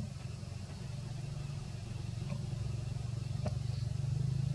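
A motor vehicle's engine running steadily, growing louder near the end, with a couple of faint clicks.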